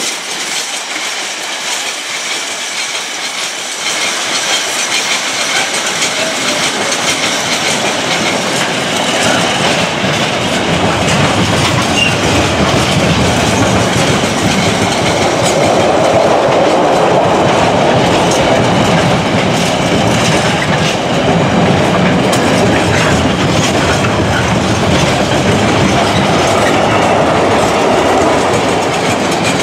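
A passing train, its wheels clattering over the rail joints in a dense run of clicks; it grows louder over the first several seconds and then keeps on steadily.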